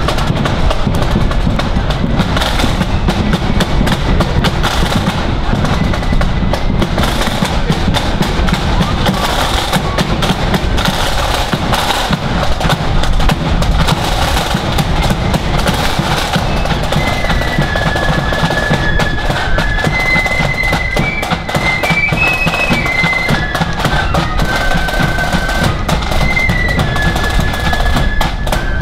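Marching flute band: side drums and bass drum beating a march, with the flutes' high melody coming in clearly about halfway through.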